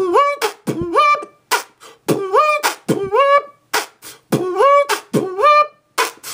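A man beatboxing: sharp mouth-made drum hits alternating with short pitched vocal sounds that rise in pitch, in a steady repeating groove of about one bar a second.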